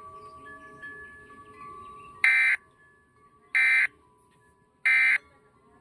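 Three short, identical bursts of Emergency Alert System digital data screech, about a third of a second each and a little over a second apart: the end-of-message code that closes the broadcast alert. Faint steady tones sit underneath beforehand.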